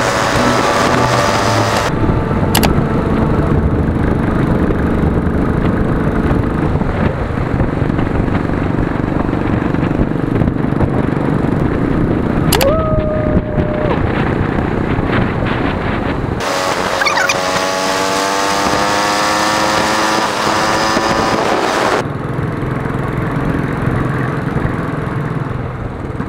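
Royal Enfield Bullet's single-cylinder engine running at road speed, heard close up from the handlebars, its pitch climbing twice as it accelerates. A short horn beep sounds about halfway through.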